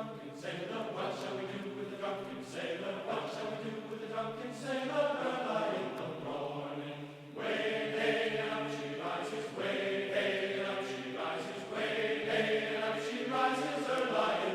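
A choir of voices singing together in long held notes that change pitch every second or so, with a brief break about seven seconds in.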